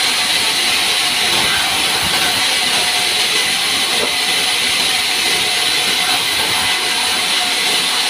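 Vertical band sawmill blade cutting pine into crate slats, a loud steady hiss that does not let up.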